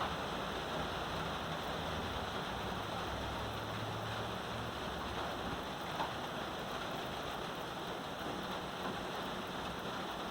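Steady rain falling on a metal roof, an even, unbroken hiss of many drops. A faint low hum sits under it in the first half.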